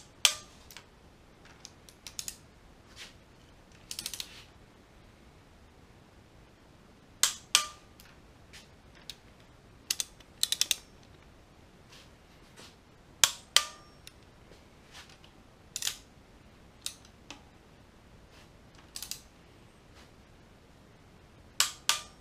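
Click-type torque wrench clicking off at 25 ft-lb on the smaller cylinder head bolts of an LS V8: about seven sharp clicks, often in quick pairs, a few seconds apart, with lighter clicks from the wrench's ratchet in between.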